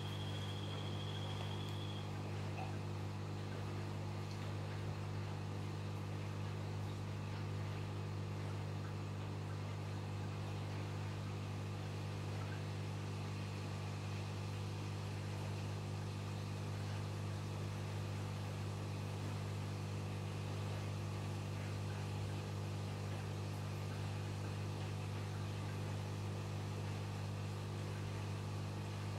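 Aquarium pump running with a steady, unchanging mechanical hum. A short high steady tone sounds over it for the first two seconds.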